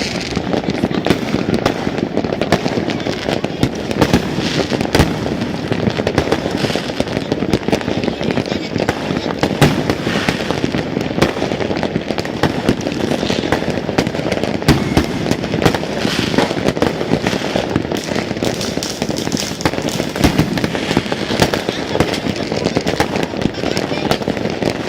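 Many fireworks and firecrackers going off at once: a continuous dense crackle with frequent sharp bangs scattered throughout.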